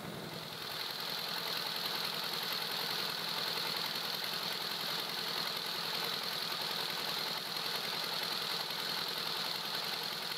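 Stationary engine on a wheeled frame, driving the generator and belt drive that power the well's pump, running steadily.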